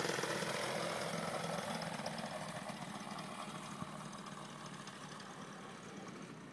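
Tandem paramotor's M25 engine running steadily, growing fainter as the craft climbs away.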